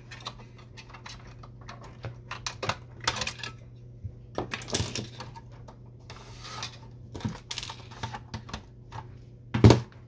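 Irregular small clicks and rattles of hands working plastic parts and ribbon cables on a disassembled inkjet printer's logic board, with small metal tools tapping the table, over a steady low hum. A louder clack comes about half a second before the end as a screwdriver is picked up from among the tools.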